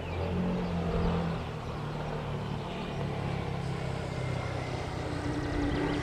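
An engine running: a low, steady drone, with faint high chirps above it.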